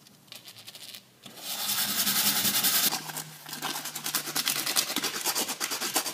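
A small washer rubbed by hand against a sanding disc's abrasive face, a rapid scratchy rasping of quick strokes that starts about a second in. The washer is being sanded down into a shim.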